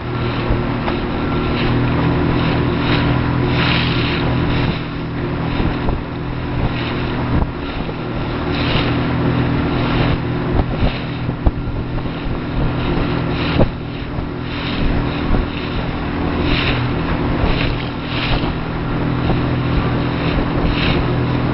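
Motorboat engine running steadily at a constant speed, with wind gusting on the microphone and a few sharp knocks about halfway through.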